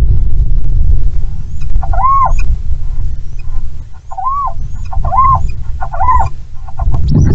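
Little owl calling: four short calls that rise and fall in pitch, the last three close together, over a steady low rumble of strong wind.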